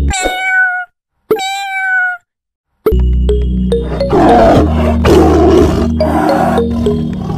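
A tiger roar sound effect, rough and loud, about two and a half seconds long, starting about four seconds in over background music with a steady beat. Near the start the music breaks off for two short high pitched tones with a brief silence before it resumes.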